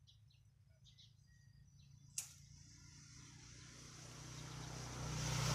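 A single sharp snip about two seconds in as scissors cut through the stem of a snake gourd, with faint bird chirps before it. A rushing noise with a low hum then swells steadily to the end and is the loudest sound.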